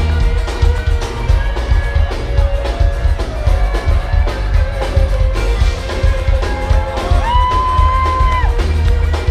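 Live band music played through a club PA: heavy bass and drums under guitar and other pitched parts, with one long held high note near the end.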